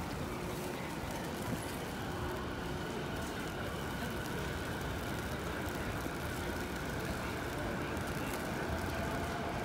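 Steady city street ambience: a low, even rumble of distant traffic with a faint hum over it.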